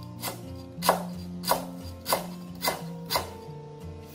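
Kitchen knife chopping fresh lemongrass and fingerroot on a wooden cutting board, about six sharp strikes a little over half a second apart, over background music.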